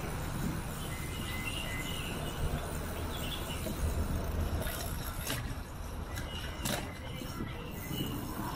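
Riding noise from a bicycle-mounted camera: a steady low rumble of wind and tyres on the cycle track, with faint bird chirps in the first half and a few sharp clicks around the middle.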